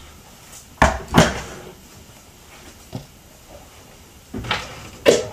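Two sharp knocks close together about a second in, like a kitchen cupboard door being shut, then a single light click near the middle and a little clatter near the end.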